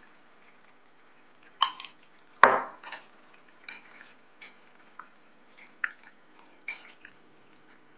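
Chopsticks knocking and clinking against a black clay pot while stirring chunks of stew. There are a few sharp clinks, the loudest about two and a half seconds in, then lighter scattered taps.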